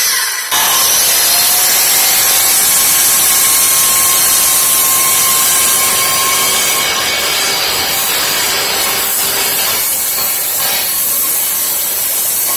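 Corded circular saw running steadily as it is pushed along an aluminium guide rail, its blade trimming the rail's plastic anti-chip edge strip to size.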